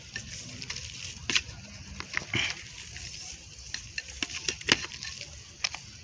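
A small trowel scraping and scooping soil into a black plastic planting bag: irregular scrapes and soft knocks, the loudest a little past halfway, over a steady low rumble of wind on the microphone.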